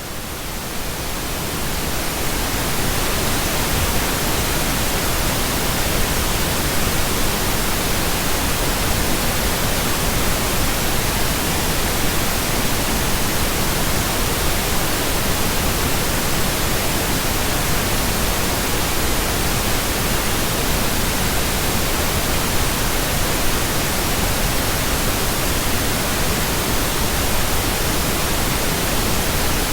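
Steady synthetic pink noise, an even hiss spread across the whole range from deep rumble to high hiss. It fades up over the first couple of seconds, then holds at a constant level.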